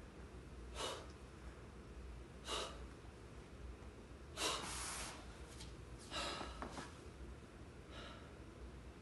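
A man breathing hard from the strain of push-ups: five sharp, noisy exhales about every one and a half to two seconds, the longest and loudest about four and a half seconds in.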